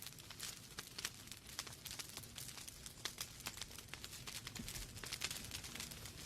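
Wood logs burning in a fireplace, crackling with many small sharp pops several times a second over a low, steady rumble.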